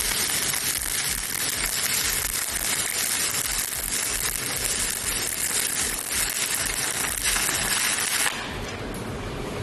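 Stick (MMA) welding with an ARC 200D inverter welder: the electrode's arc crackling and sizzling steadily. About eight seconds in it drops to a quieter, thinner crackle.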